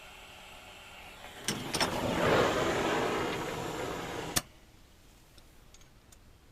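Oxy-acetylene cutting torch with a faint hiss, then a loud rushing blast of about three seconds as the cutting oxygen is opened on the steel. It cuts off abruptly with a sharp snap, and the flame is running too hot for the tip fitted.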